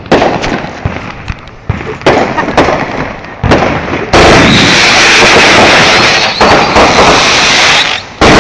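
Consumer fireworks going off, very loud on the phone's microphone. Several sharp bangs come in the first three and a half seconds, then about four seconds of dense, unbroken noise from the firework, then another bang near the end.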